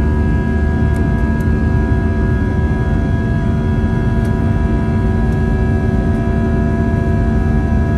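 Airbus A320 cabin noise while climbing out after takeoff. The turbofan engines run steadily, giving a loud low rumble with several steady whining tones over it.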